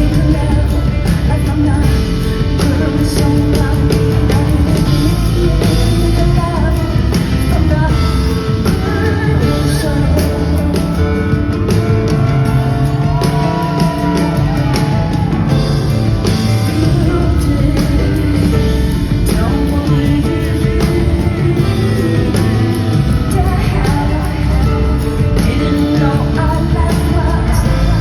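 Live concert performance: a woman singing over a full band, loud and continuous.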